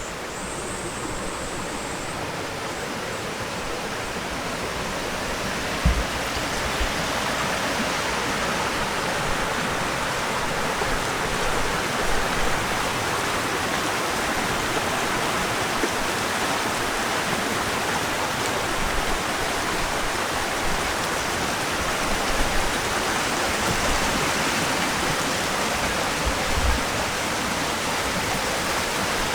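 Flowing water of a spring-fed stream, a steady rush that grows louder over the first several seconds.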